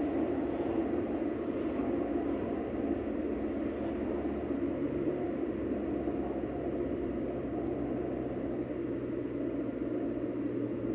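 Steady tyre and engine noise heard inside a car's cabin while driving along a road. A low, even engine hum joins the road noise about four seconds in.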